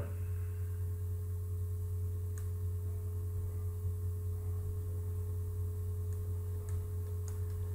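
Steady low electrical hum with a fainter higher tone held above it, and a few faint clicks near the middle and toward the end.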